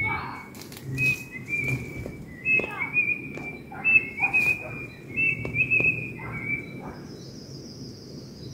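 A run of short, high whistled notes, about a dozen over roughly seven seconds, stepping slightly up and down in pitch. A fainter, higher note follows near the end.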